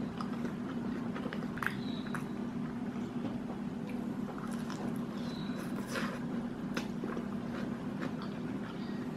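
A person chewing and biting into a chicken burger, with small wet mouth clicks, over a steady low hum.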